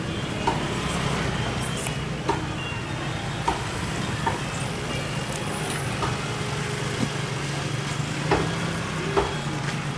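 A knife filleting a fish on a thick wooden chopping block: about eight sharp knocks as the blade strikes the block, a second or so apart and loudest near the end, over a steady low background hum.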